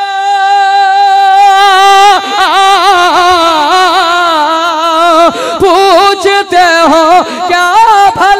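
Man singing a devotional manqabat into a microphone, solo voice: a long held note, then from about two seconds in an ornamented run of wavering notes with heavy vibrato.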